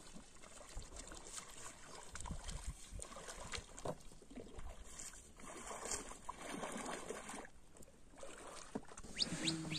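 Faint splashing and dripping of plastic oars dipping into lake water as an inflatable dinghy is paddled.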